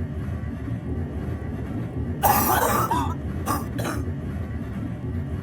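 A person's harsh cough about two seconds in, followed by two short coughs, over the steady low rumble of a running laundry machine. Persistent night-time coughing.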